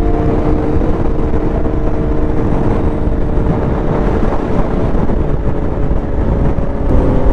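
Motorcycle cruising at highway speed: steady engine drone under heavy wind rush on the microphone.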